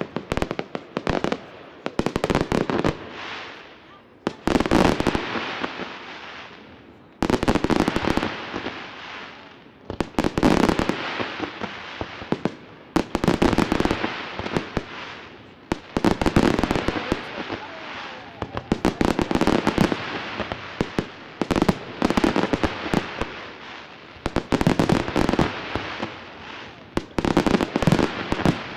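Fireworks display: volleys of aerial shell bursts with dense crackling, coming in waves about every three seconds, each wave dying away before the next volley.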